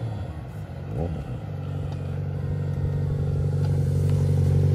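Yamaha XJ6 inline-four motorcycle with an aftermarket exhaust running at a steady engine note that grows louder as it approaches, with a brief rise and fall in pitch about a second in.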